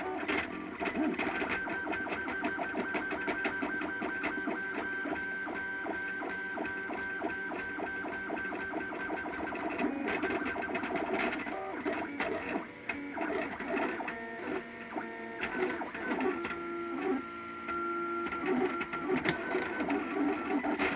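MakerBot Thing-O-Matic 3D printer running a print: its stepper motors buzz and whine as the head moves. The tones shift and step between pitches in the second half as the moves change.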